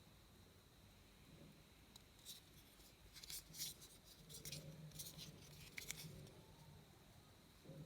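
Faint rustling, scraping and light clicks of hands handling a smartphone and its packaging, in a cluster of short scratchy sounds through the middle of the stretch.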